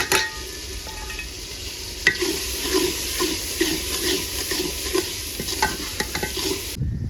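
Onion, tomato and spice masala sizzling as it fries in a pot, stirred with a spoon that scrapes the pot about twice a second, with a few sharp clinks. The sizzle cuts off shortly before the end.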